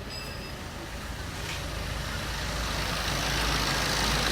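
Diesel car engine idling just after an engine carbon-cleaning treatment, steadily getting louder over the first three seconds or so.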